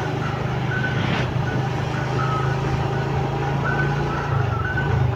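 Motorcycle engine running steadily while riding in traffic beside trucks, with a brief rush of noise about a second in as a tanker truck is passed. Short high beeps recur every second or so.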